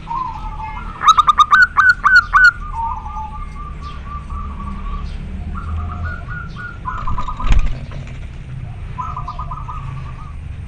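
Male zebra dove (perkutut) singing its calling song to a female: a run of loud, rapid staccato coos about a second in, trailing into softer rolling notes, then two more short rolling phrases. A single sharp knock about halfway through.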